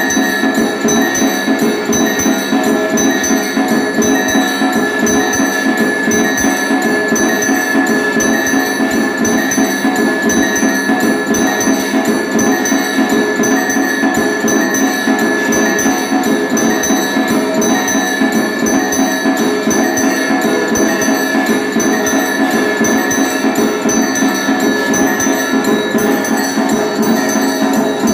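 Automatic electric temple drum-and-bell machine (puja dhol bell) playing: a drum beaten in rapid, unbroken strokes under a steady ringing of bells.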